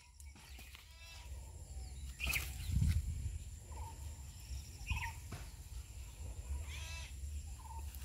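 Faint, short animal calls every second or two over a steady low rumble.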